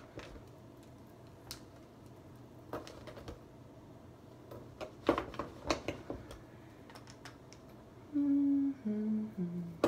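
Scattered light clicks and taps of small makeup items being handled as an eyeliner is picked up, then a woman humming three short notes, each lower than the last, near the end.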